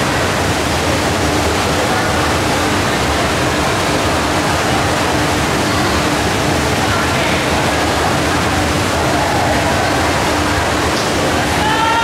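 Continuous din of spectators and swimmers cheering and shouting in an echoing indoor pool hall during a swim race, over a steady low hum, with a louder shout near the end.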